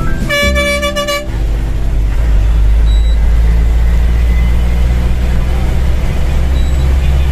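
A vehicle horn sounds once for about a second near the start, over the steady low rumble of a vehicle driving along the road.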